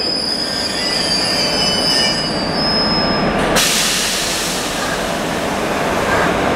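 Train wheels squealing against the rails in thin high tones as the train rolls slowly through the station, over a steady rumble. About halfway through the squeal stops and a sudden, steady high hiss takes over.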